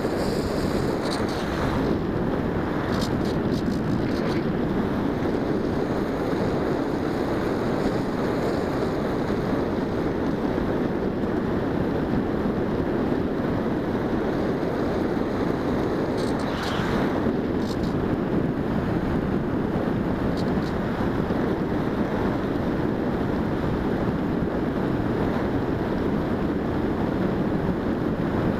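Steady rush of airflow buffeting the onboard camera's microphone as a Bixler 1.1 foam RC plane flies at altitude.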